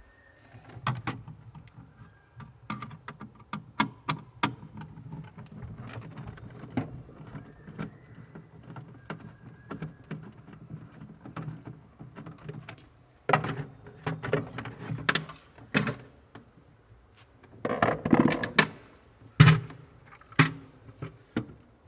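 Hands handling refrigerator parts: a long run of small clicks, taps and knocks, with louder clusters of knocks and thunks in the second half.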